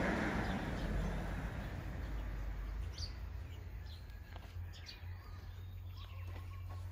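Outdoor ambience: a steady low rumble under a hiss that fades over the first two seconds, with short, faint bird chirps from about three seconds in.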